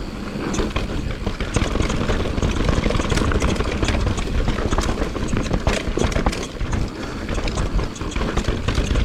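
Santa Cruz Nomad full-suspension mountain bike running down a rough downhill trail, heard from a helmet-mounted camera: a steady rumble of wind and tyres with many quick clicks and rattles from the bike over bumps.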